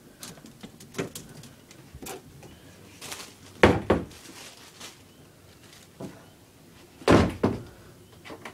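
Knocks and clatters of things being handled, with two louder thumps about three and a half and seven seconds in.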